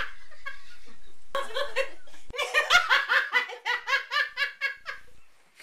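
Laughter in a rapid 'ha-ha-ha' run, about five bursts a second. It grows loud about two seconds in and fades out near the end.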